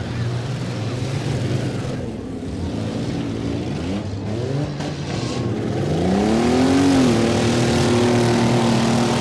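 Engines of demolition-derby vans and pickup trucks running, with one revving hard: its pitch climbs steeply about six seconds in and then holds at high revs.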